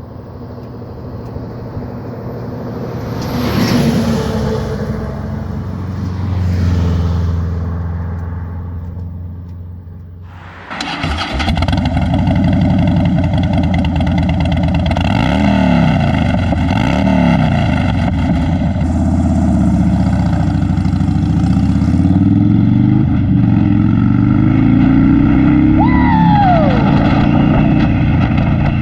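Harley-Davidson V-twin motorcycle engine on a ride. It rises and falls twice in the first ten seconds, then cuts sharply to running louder and steadier, with revs climbing and dropping.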